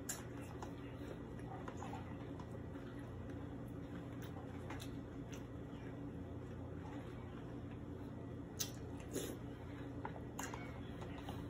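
Chewing milk-soaked cereal, with a handful of sharp clicks from a metal spoon knocking against a plastic tub, over a steady low hum.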